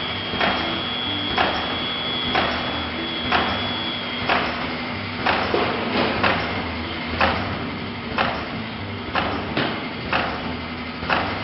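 Pouch-making machine cycling: its pneumatic press head strikes the printed film web with a sharp clack about once a second, some strokes in quick pairs, over a steady motor hum. A faint high whine stops about four seconds in.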